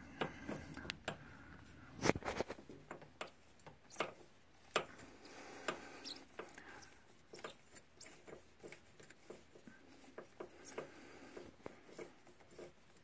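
Scattered light clicks and knocks of a spark plug socket and extension being worked onto a spark plug among rubber hoses, with a sharper knock about two seconds in.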